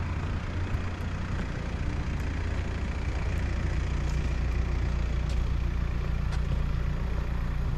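Car running steadily, a constant low engine and road rumble with no clear change in pace.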